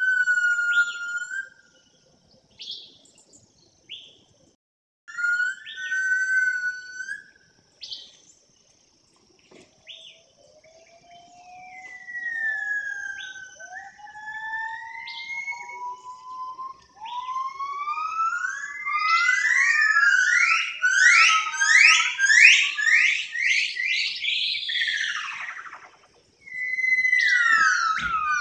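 High, whistle-like tones that hold and glide slowly up and down, breaking into a fast run of repeated rising sweeps in the second half, followed by one long falling sweep.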